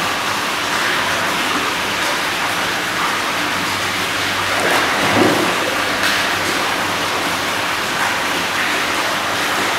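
Hot spring water pouring steadily from a spout into a stone bath, with water lapping and sloshing as a bather wades through the pool; a slightly louder swell about halfway through.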